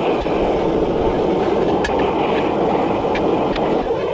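Steady roar of a propane gas forge, with a few light hammer taps on a red-hot twisted iron bar on the anvil.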